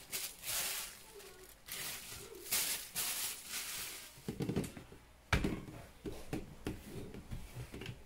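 A thin plastic produce bag crinkling as it is handled. Then, from about halfway through, tomatoes are set into a plastic organizer basket with a series of light knocks, one sharper than the rest a little past five seconds.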